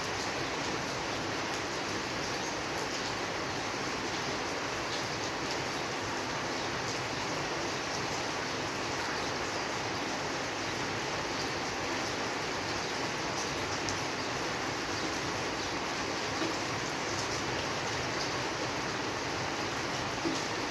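Steady rain falling, an even hiss with many small scattered drop ticks throughout.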